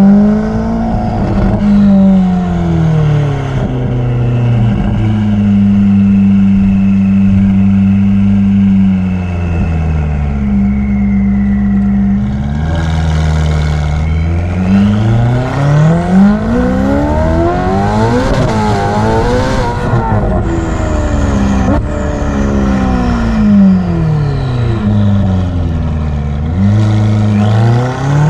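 Ferrari F8's twin-turbo V8 revving up and down, climbing and falling in pitch several times and holding steady for a few seconds between, with a thin turbo whistle gliding above the exhaust note.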